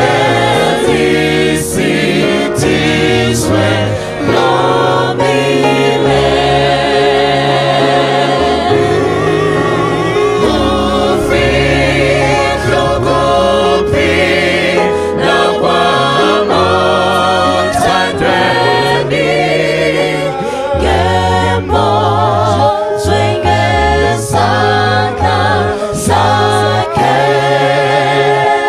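Gospel vocal group of mixed men's and women's voices singing together in harmony.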